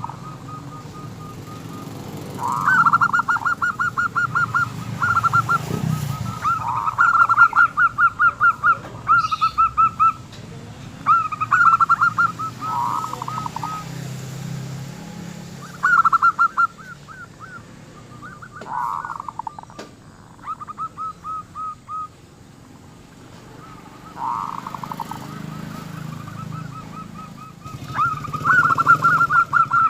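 Zebra dove (perkutut) cooing in repeated bouts, each a quick run of staccato notes, with a small, raspy local-type voice.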